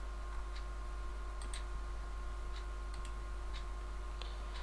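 Computer mouse clicks, single and scattered at uneven intervals, with one quick double click about a second and a half in, over a steady background electrical hum.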